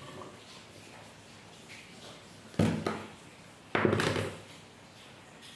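Two sharp knocks on a bamboo cutting board, about two and a half and four seconds in, as a kitchen knife and vegetable pods are handled on it.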